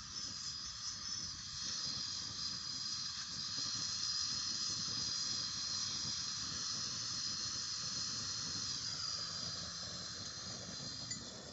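Propane torch flame hissing steadily as it heats a rusted, seized nut to free it. The hiss eases off near the end.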